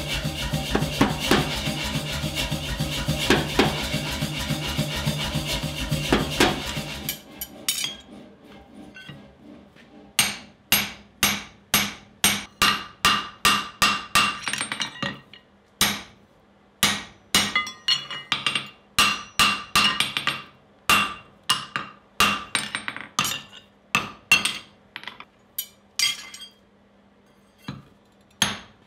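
Hand hammer striking a handled hot punch driven into a glowing steel block on an anvil: sharp, ringing metal-on-metal blows about two a second, with short pauses, as the punch is driven into the hot steel. A steady humming sound, louder than the blows, fills the first seven seconds and then cuts off.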